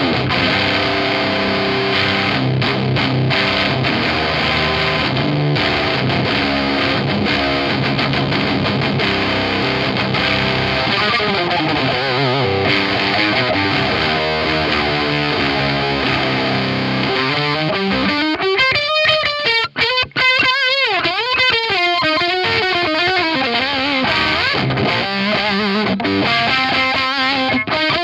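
Electric guitar played through a Zander Circuitry Terra Firma fuzz/power-amp-style distortion pedal. Thick distorted chords ring out for most of the stretch, then from about two-thirds of the way in it changes to a single-note lead line with bent, wavering notes.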